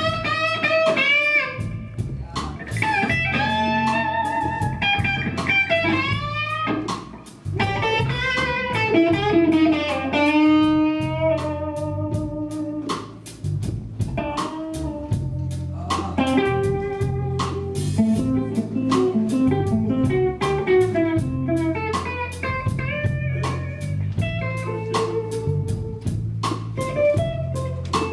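Live blues-rock band: a lead electric guitar plays a solo full of bent, sliding notes over steady bass guitar and drums.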